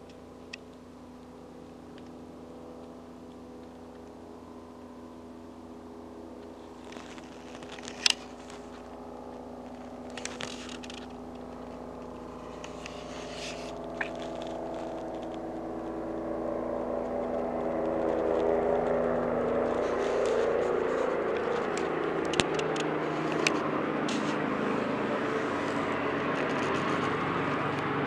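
Eurocopter EC145 twin-turbine helicopter approaching and descending: a steady turbine and rotor hum that grows louder throughout, the rotor noise thickening into a rushing beat in the second half as it nears. A few sharp clicks break through, the loudest about eight seconds in.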